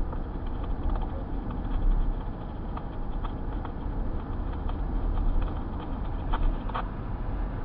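Steady low rumble of a car cabin on the move, from engine and road noise, with a couple of short clicks about six and a half seconds in.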